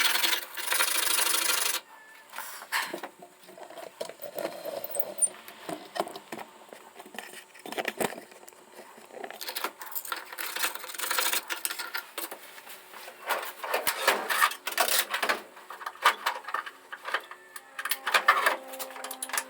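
Hand work with tools on hard material: irregular scraping, rubbing and small clinks, after a loud hiss that stops abruptly about two seconds in.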